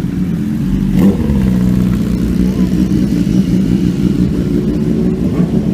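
Superbike engine running steadily, with a sharp click about a second in.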